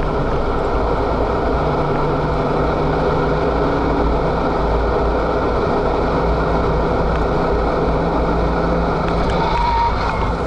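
Renault Mégane RS265's turbocharged 2.0-litre four-cylinder engine running hard at a steady high pitch, heard from inside the cabin over loud road and wind noise. The engine note breaks off briefly near the start with the hand on the gear lever, a gear change, and comes back a little lower.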